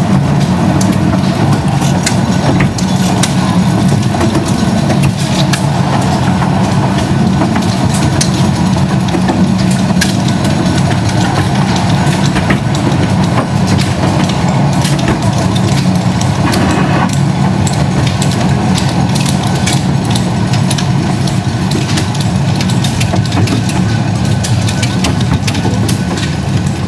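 Fair train ride running steadily from on board: a constant engine drone with many short clicks and rattles from the moving cars.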